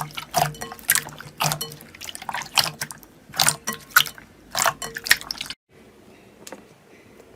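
Slime being pressed and squished: a run of wet pops and clicks, about two a second, that stops abruptly about five and a half seconds in, followed by one faint click.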